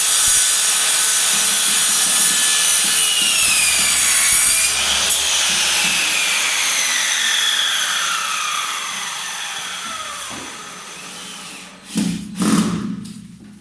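Electric miter saw cutting wood with a loud, harsh scream. About five seconds in the motor is let go and its whine falls steadily in pitch as the blade coasts down. Near the end there are two sharp knocks.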